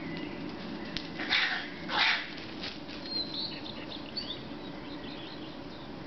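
Two loud screeches from an unidentified animal, one straight after the other about a second in. A short, high, thin song phrase from a common redstart follows.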